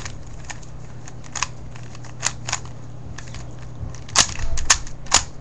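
Scattered sharp clicks and taps from a handmade paper puzzle cube being handled and its layers turned, loudest in a cluster about four to five seconds in, over a steady low hum.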